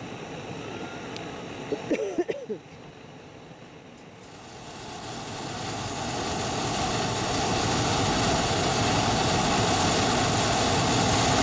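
A hot-air balloon's propane burner firing. It is a steady rush of noise that swells over a few seconds from about four seconds in, then holds loud.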